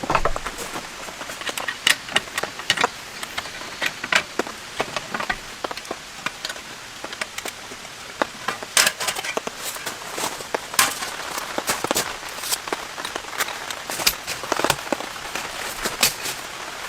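Steady rain, with many large drops tapping sharply and irregularly on a hard surface.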